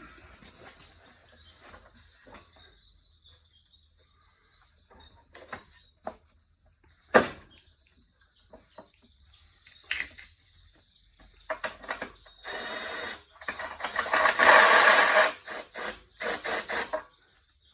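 Metal tools and bolts clicking and knocking as engine mounting bolts are fitted, with one sharp metal knock about seven seconds in. Near the end comes a loud burst of dense rattling tool noise lasting about two seconds, then a run of quick clicks.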